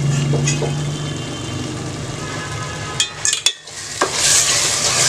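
A low steady hum with a few light clicks, then a clatter about three seconds in. From about four seconds, masala gravy of tomatoes, spices and yogurt sizzles loudly in the pan as it cooks down.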